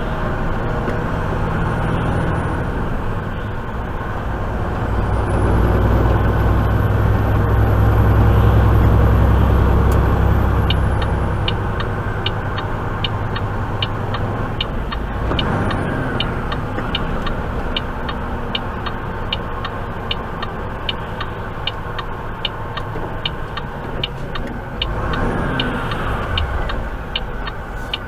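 Semi truck's engine and road noise heard from inside the cab at highway speed, steady, and louder for several seconds a little way in. About a third of the way in, a sharp ticking starts at about two ticks a second and keeps on.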